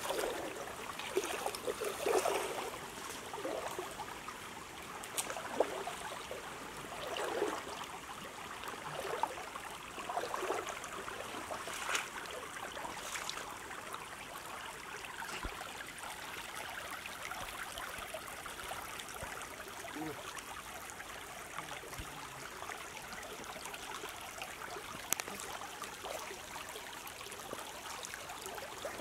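Shallow stream running over a pebbly bed: a steady rush of flowing water, with a few louder splashy bursts in the first half.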